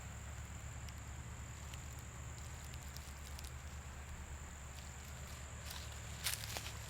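Faint, steady outdoor ambience with a low hum, a thin high steady whine and a few soft ticks; about six seconds in, a couple of footsteps on the woodland trail.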